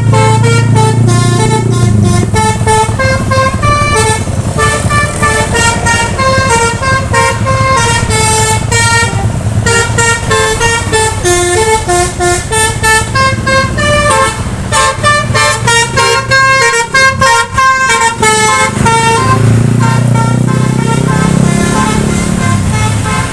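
A bus's 'basuri' multi-tone musical air horn playing a fast melody of short, stepping notes, over the low hum of the bus engine.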